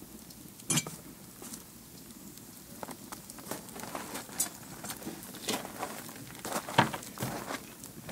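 Wood fire crackling, with irregular sharp pops from the burning logs; the loudest pops come about a second in and again near the end.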